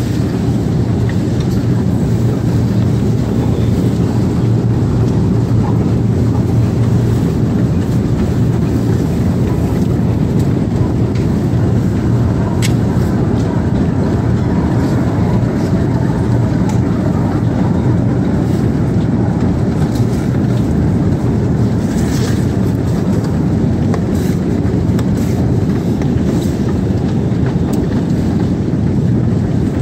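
Escalator running: a steady low mechanical hum and rumble, with occasional faint clicks.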